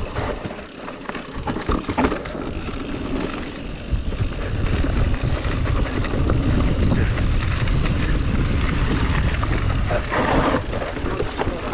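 Mountain bike descending a dirt trail: wind rushing over the camera microphone and tyres rumbling over the ground, with rattles and knocks from the bike over rough spots. The rumble grows louder about four seconds in as speed picks up.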